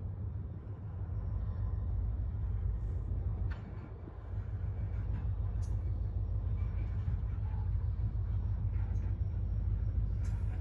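Freight train of covered hopper cars rolling slowly past, a steady low rumble with a few brief sharp clicks from the wheels and couplings.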